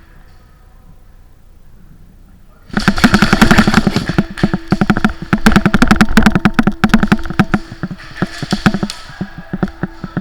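Airsoft electric guns firing full-auto, a rapid rattle of shots in long bursts that starts suddenly under three seconds in.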